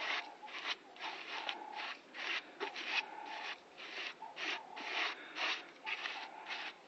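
Repeated rubbing or scraping strokes worked by hand on vehicle bodywork, about two to three a second, in an even rhythm.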